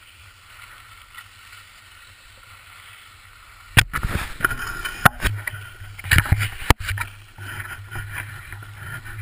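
Action camera on a hand-held pole: a faint steady hiss, then from about four seconds in a run of loud knocks and rustling as the camera and pole are handled. In the last couple of seconds, a steady low rumble of wind on the microphone.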